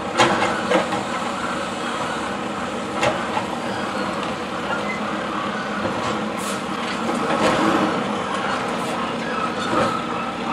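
Automated side-loader garbage truck running, its hydraulic arm tipping a wheeled trash cart into the hopper and setting it back down, with a few sharp knocks of the cart near the start and about three seconds in. The truck then pulls forward.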